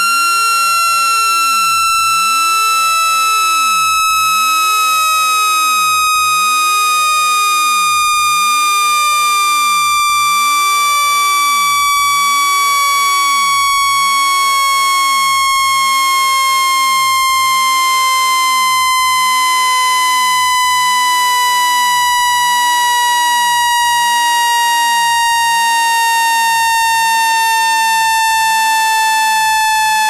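Loud electronic tone with a buzzy stack of overtones, its pitch gliding slowly and steadily downward: a water-ejection tone meant to vibrate water out of a phone's charging port.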